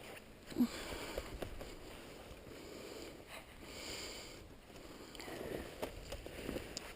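Snowshoes tramping through snow in uneven steps, each a soft crunching swish, with a sharper knock about half a second in.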